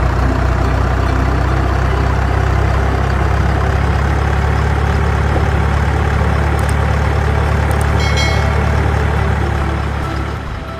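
Heavy truck engine running steadily, with a brief high tone about eight seconds in; the engine fades out near the end.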